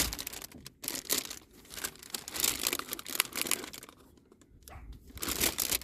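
Crinkling and rustling of paper and plastic packaging being handled and sorted through, in irregular bursts with short pauses.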